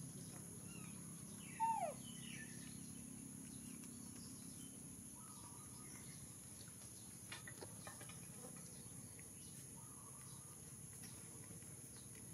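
Outdoor ambience of a steady high-pitched insect drone with scattered bird chirps. About a second and a half in, one loud short whistled call sweeps down in pitch; a few faint taps come near the middle.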